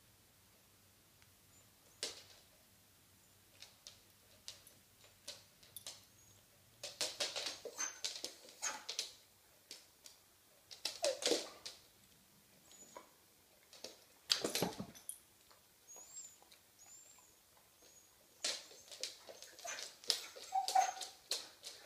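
Two dogs playing: irregular short scuffling and breathy bursts, in clusters, with a few faint high whimpers.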